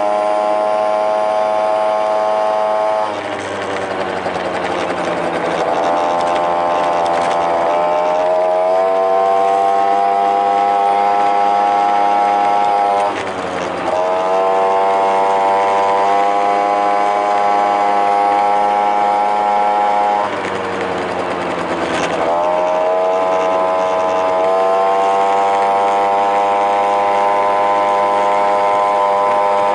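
Honda Tact AF24 50cc two-stroke scooter engine running under way, with loud intake noise from an aftermarket air cleaner. The engine note dips about 3, 13 and 20 seconds in as the throttle eases, then climbs back up as it picks up speed again.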